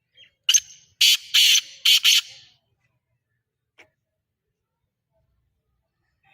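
Black francolin calling: a loud burst of about five harsh, rasping notes over roughly two seconds. A faint click follows a little later.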